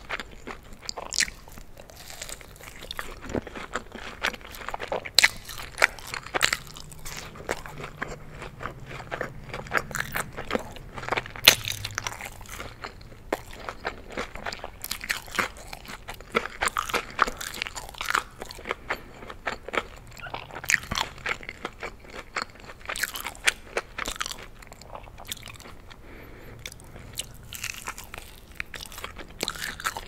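Close-miked chewing of crisp breaded chicken wings, the coating crunching in many sharp, irregular bites with wet mouth sounds between.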